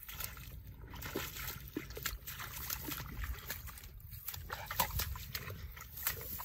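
Boerboel nosing about with its muzzle in a shallow, grassy puddle, making a run of short, irregular splashes and sloshes of water.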